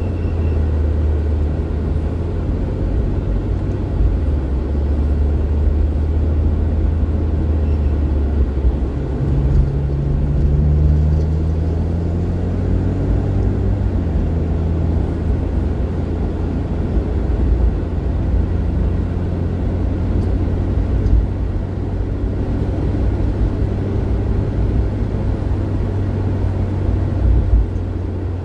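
Alfa Romeo Giulia's turbocharged four-cylinder engine and aftermarket exhaust running at low, steady speed with a continuous low rumble. About ten seconds in, the engine note climbs as the car accelerates, then falls back and settles.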